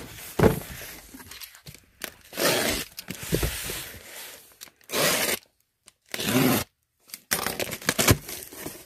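A heavy cardboard box set down with a thump, then a box cutter slitting its packing tape in several separate strokes, and the taped cardboard flaps pulled open with rustling and crackling.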